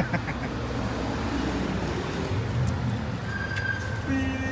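Steady street traffic noise with a low rumble of passing vehicles.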